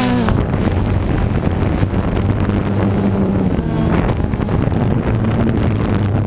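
Drone's electric motors and propellers buzzing steadily in flight, heard from its onboard camera, with wind noise on the microphone. The buzz shifts in pitch briefly near the start and again about four seconds in, as the motors change speed.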